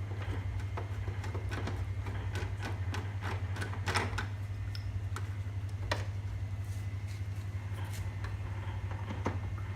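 Irregular clicks and taps of a screwdriver working the screws out of a wall-mounted air conditioner's indoor unit, over a steady low hum.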